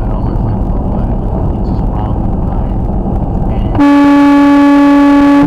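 Steady highway road and engine noise in a semi truck's cab. About four seconds in, a loud horn cuts in with one long, steady, single-pitched blast held for about a second and a half.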